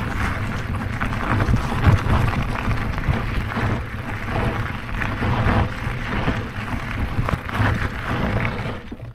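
Wind buffeting the microphone over the rumble and crunch of tyres on loose gravel as an e-bike rides along a gravel track. The noise is loud and gusty, and it stops abruptly near the end.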